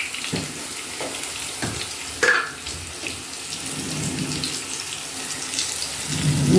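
Potato wedges frying in hot mustard oil in a nonstick pan, a steady sizzle, with a few light knocks of the spatula against the pan.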